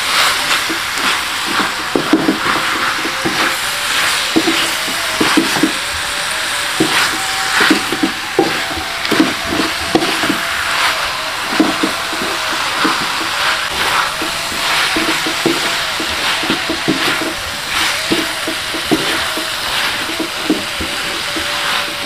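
Wooden spatula scraping and knocking against a metal wok as pak choy and shrimp are stir-fried, with the food sizzling steadily underneath. The spatula strokes come irregularly, several a second.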